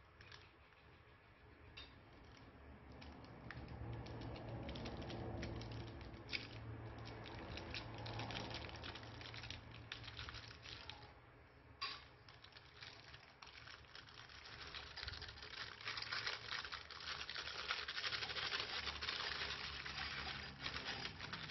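Plastic piping bag crinkling as it is handled, then a sharp scissor snip a little past halfway as its tip is cut. After that, a growing clatter of many small plastic alphabet cube beads tumbling out of the bag onto a bed of foam balls in a glass bowl, thickening into a dense rattling patter toward the end.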